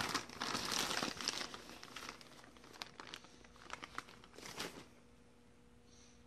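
Crinkling and rustling of packaging handled by hand while a rubber band is taken out. It is busiest in the first second or so, thins to scattered light clicks, and stops about five seconds in, leaving a faint steady hum.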